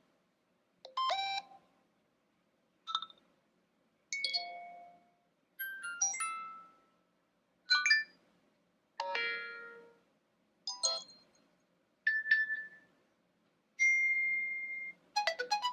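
A run of about ten new iOS 7 alert tones previewed one after another on an iPhone. Each is a short electronic chime or jingle lasting about a second, separated by brief silences.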